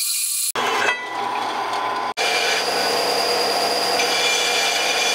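Power tools working steel tubing: a steady metal-on-metal screech over a motor hum, first from a horizontal bandsaw and then from a grinder on the tube. The sound comes in edited clips that cut in and out abruptly about half a second and two seconds in.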